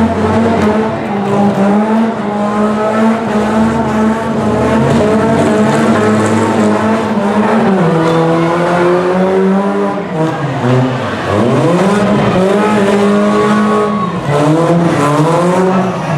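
Car engines running hard and revving: a steady engine tone that drops in pitch about halfway through, dips low and climbs back up, then drops again near the end.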